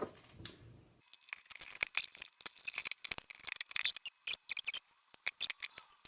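Packaging of a Nest Protect smoke alarm being handled and opened: a dense, irregular run of crackles and clicks of cardboard and plastic, starting about a second in.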